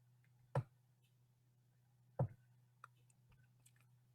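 Two sharp clicks about a second and a half apart, then a few faint ticks, over a low steady hum.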